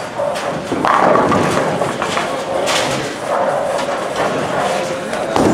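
Bowling alley din: balls rolling on the wooden lanes and pins clattering, with a sharp pin crash about two and a half seconds in and another near the end.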